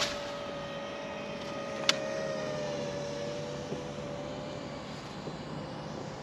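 A steady, slightly wavering motor drone that fades out about five seconds in, with sharp clicks at the start and about two seconds in.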